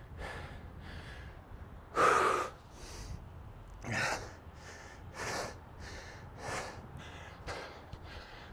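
A man breathing hard after a hill sprint: quick, heavy breaths, somewhat more than one a second, the loudest about two seconds in.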